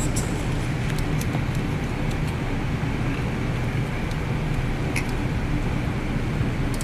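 A steady low hum of background noise, with a few faint clicks as parts are handled in an engine bay.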